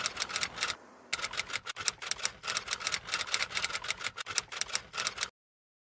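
Typewriter keystroke sound effect: a rapid, uneven run of key clacks that pauses briefly about a second in and cuts off suddenly near the end.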